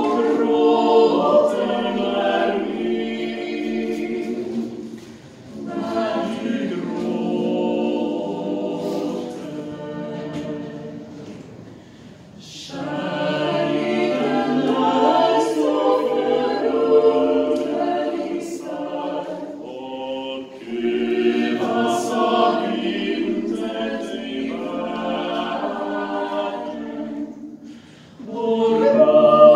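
Mixed six-voice a cappella vocal group, men and women, singing a Swedish song in close harmony. They sing in phrases of about seven seconds, with a short break for breath between them.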